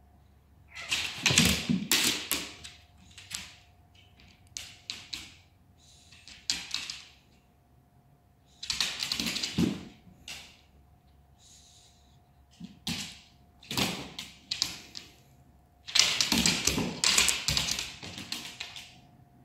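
Scrabbling clatter and thuds of a dog's paws and claws on a hard floor during rough play with a cat, in several irregular bursts a few seconds apart.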